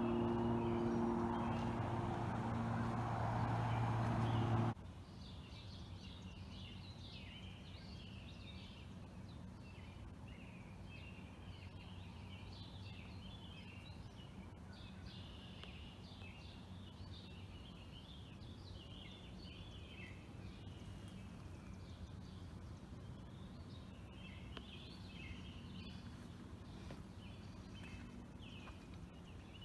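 Small birds chirping, many short calls over faint outdoor background. For the first few seconds a louder steady low hum plays, then cuts off abruptly.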